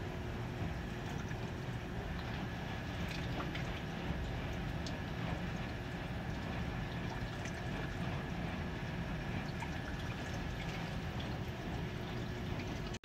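Water trickling and dripping at a small ice-covered wooden waterwheel: a steady rush of running water with scattered small drips through it.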